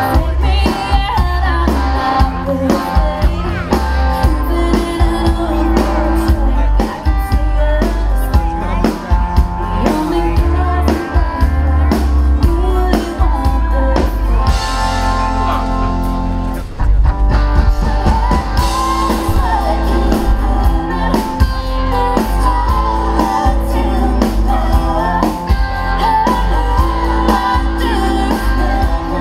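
A live band plays a Christmas song: a woman sings lead over electric guitar, bass and drums.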